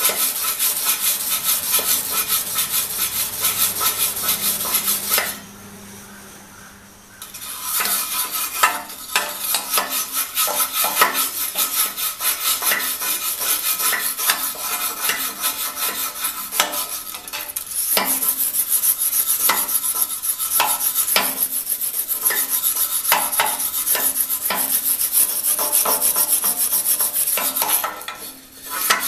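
Hand wire brush with steel bristles scrubbed rapidly back and forth on the steel of a grader blade, scraping off paint and dirt to leave clean metal for welding. The scrubbing stops for a couple of seconds about five seconds in, then resumes until near the end.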